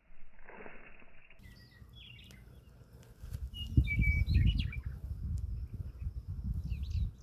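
Small birds chirping, with an uneven low rumble underneath from about three seconds in.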